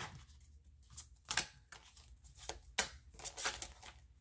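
Tarot cards being handled and set down: several short, soft taps and slaps of card on card and on the table, spaced irregularly.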